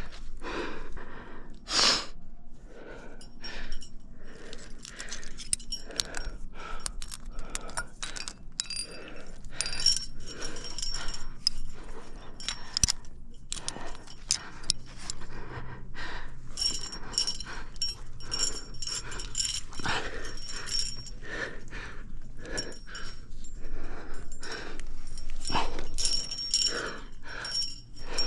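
A rock climber breathing hard from exertion on a finger crack, with short, sharp exhales again and again close to the microphone. Carabiners clink as a quickdraw is clipped to the rope about halfway through.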